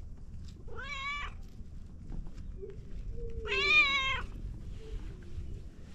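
Calico cat meowing twice, each call rising and then falling in pitch; the second, about three seconds in, is longer and louder.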